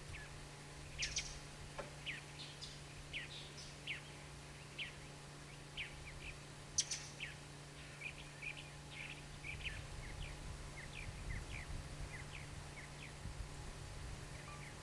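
Small birds chirping: many short, quick, high chirps, one after another, over a steady low hum.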